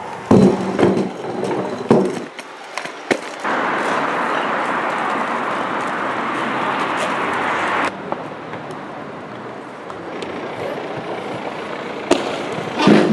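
Inline skate wheels rolling over paving, a steady hiss that drops sharply about eight seconds in and carries on quieter. Clattering knocks come near the start and again near the end.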